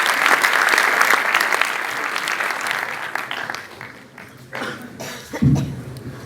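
Audience applauding, the clapping dying away after about three seconds, followed by a few scattered small noises and a sudden low thump near the end.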